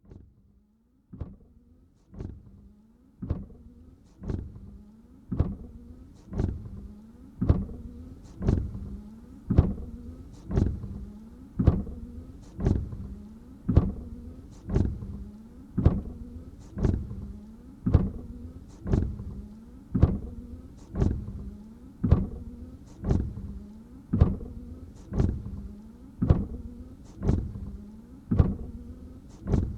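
Car windshield wipers sweeping over a dry windscreen with no water, about one stroke a second. Each sweep starts with a sharp knock and fades away under the wiper motor's hum; the strokes grow louder over the first few seconds.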